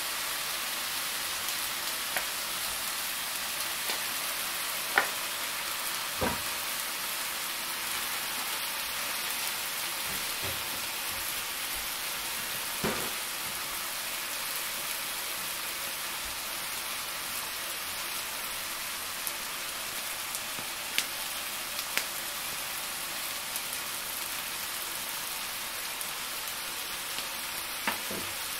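Mushrooms, sun-dried tomatoes and cheese frying in a pan: a steady sizzling hiss, with a few scattered light clicks and taps.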